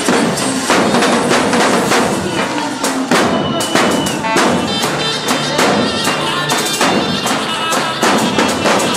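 Several Albanian tupan (lodra), large double-headed bass drums, beaten in a fast, driving dance rhythm, with a melody line held above the drums.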